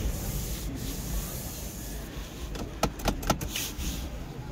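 A quick run of about four sharp clicks around three seconds in, as the car's cabin controls are handled, over a steady low background rumble.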